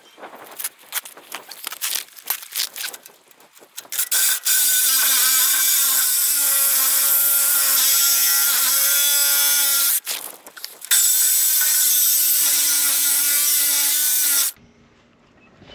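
Milwaukee Sawzall reciprocating saw cutting through steel irrigation pivot pipe. It starts with a few short, irregular bursts and knocks, then runs steadily with a motor whine that wavers as the blade bites, pauses briefly about ten seconds in, resumes, and stops abruptly near the end.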